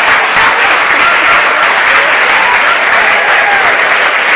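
Live theatre audience applauding with dense, steady clapping.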